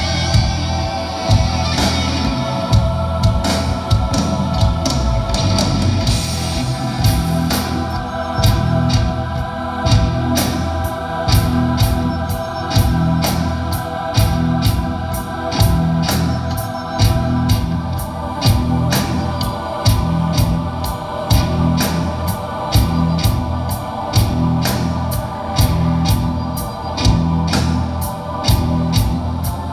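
Live rock band playing an instrumental: sustained organ-like keyboard chords over bass guitar and a drum kit keeping a steady beat. The drum strokes grow denser and more regular about seven seconds in.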